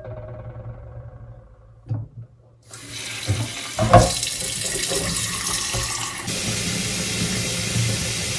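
Kitchen tap running into a stainless-steel sink, filling a glass sprouting jar with water; the flow starts about three seconds in and then runs steadily. A few light knocks come before it, and one sharper knock about four seconds in.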